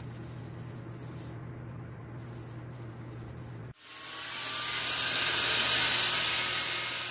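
Wood lathe running with a steady low hum; about three and a half seconds in it cuts to the loud hissing rasp of a drill-driven sanding disc pressed against the spinning wood-and-resin vase, swelling and then easing off.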